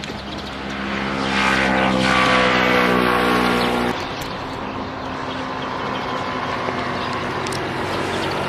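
Small motorcycle's engine running as it rides up close and passes, growing louder with its pitch sliding down slightly as it goes by. It cuts off abruptly about four seconds in, leaving a steadier, quieter engine hum.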